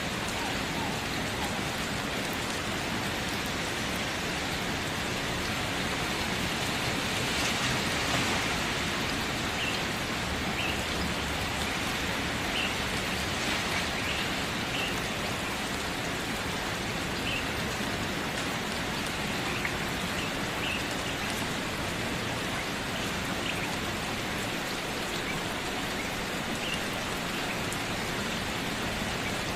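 Steady rain falling, an even hiss that swells slightly about seven to eight seconds in. A few faint, short high notes sit on top of it.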